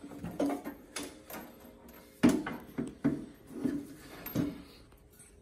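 Stainless steel double-bowl kitchen sink being flipped over and set down upside down: a series of knocks and clunks, the loudest about two seconds in.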